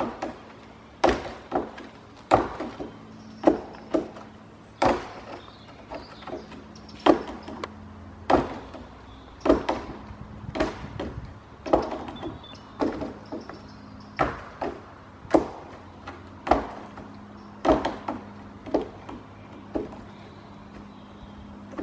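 A brown bear rhythmically pushing down on a long fallen branch with a front paw, the dead wood knocking about once a second, sometimes twice in quick succession.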